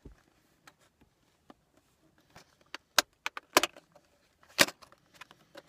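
Clear plastic retail box being handled and opened by hand: a run of sharp plastic clicks and crackles, the loudest about three seconds in, again at three and a half, and at four and a half.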